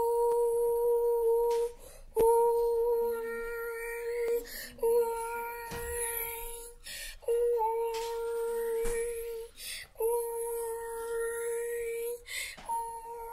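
Test-card tone: a steady, mid-pitched electronic tone beeping on and off, each beep about two seconds long with a half-second gap, six times.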